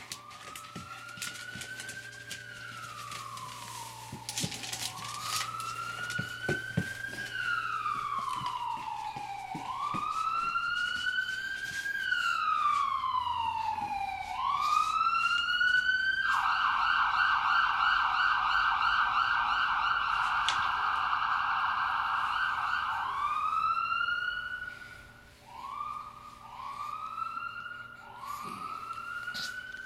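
Police-style siren sound effect: about four slow wails that rise and fall, then a fast warble, which is the loudest part, and then several short rising whoops near the end.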